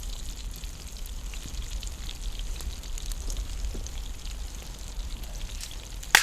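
Campfire crackling with scattered small pops, then one sharp, loud crack near the end. The fire is burning poorly, and the firewood may be wet.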